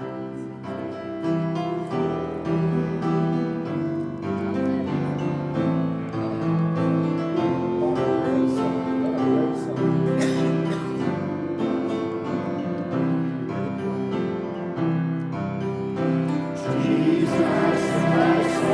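Instrumental piano introduction to a gospel choir song, steady sustained chords; the choir comes in singing about two seconds before the end.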